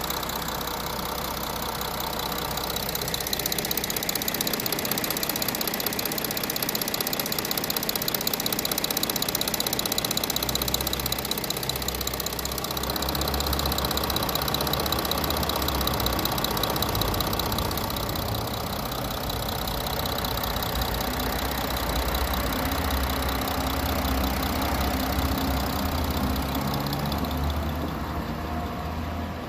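Audi A6 45 TDI's 3.0-litre V6 diesel engine running steadily, with a fast, fine ticking over the low hum; this is the engine noise the owner recorded as a concern at about 17,000 km.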